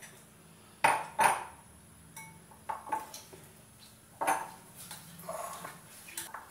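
A dog barking a few short times, over light clinking of a spoon against a glass bowl.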